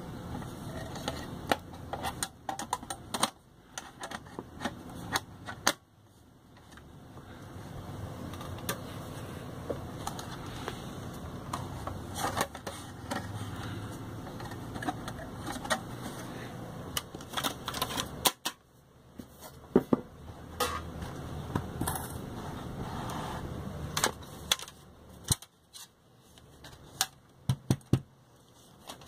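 Irregular clicks and taps of metal and plastic parts being handled and fitted on an opened car CD receiver's chassis.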